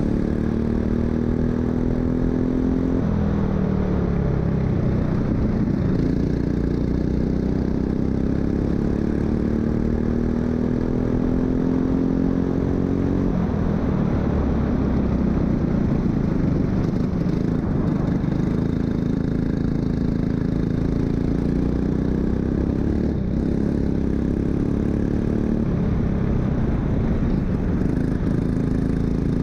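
Racing kart engine at high revs, its pitch climbing steadily as it accelerates and dropping sharply when the throttle is lifted, about three seconds in and again around thirteen seconds in, then rising and falling through the corners.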